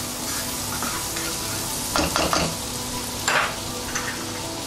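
Chopped garlic sizzling in melted butter in a non-stick wok, with a spatula scraping and stirring against the pan in a few quick strokes about two and three seconds in.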